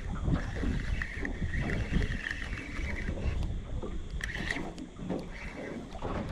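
Wind buffeting the microphone over water washing around, with an uneven, gusty rumble.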